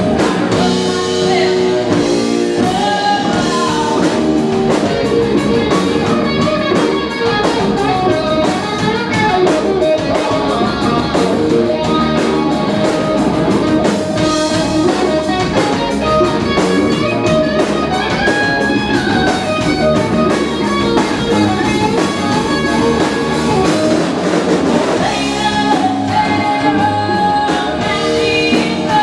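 Live rock band playing: electric guitars and a drum kit, with a woman singing into a microphone.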